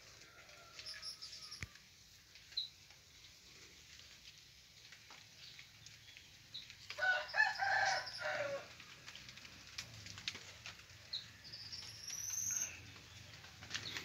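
A rooster crows once, about seven seconds in, a call lasting nearly two seconds. Faint high bird chirps come a few seconds later.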